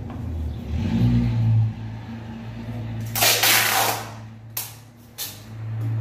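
Masking tape being pulled off the roll in one long loud rip about three seconds in, followed by two short tearing sounds, over a steady low hum.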